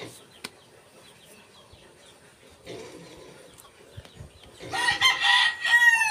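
A rooster crows once, starting about three-quarters of the way in: one long, loud call that drops in pitch at its tail. A fainter low murmur comes before it.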